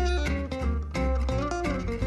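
Instrumental background music: plucked guitar notes over a bass line.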